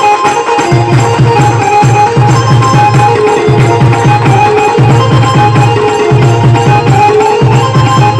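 A live band playing a loud folk tune: a drum beat of about three hits a second under a held melodic line.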